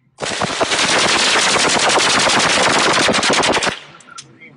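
AK-style assault rifle fired in one long fully automatic burst, rapid shots for about three and a half seconds, stopping abruptly.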